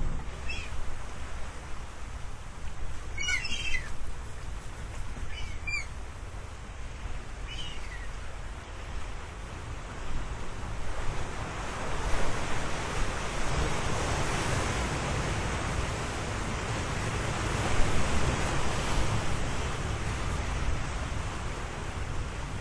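Ocean surf washing ashore, the wash building to a fuller surge about halfway through and holding. A few short, falling bird chirps come in the first third.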